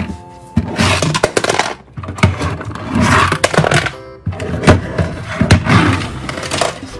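Irregular clattering and scraping of hard objects being handled, in several loud bursts with brief pauses between them.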